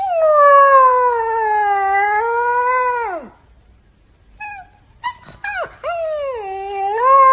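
Husky puppy howling: one long howl of about three seconds that slides down at its end, then after a pause a few short swooping yelps that lead into a second long howl near the end.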